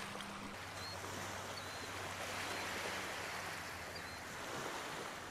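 Soft, steady wash of shallow seawater on a sandy beach at low tide, with a few faint, short high chirps.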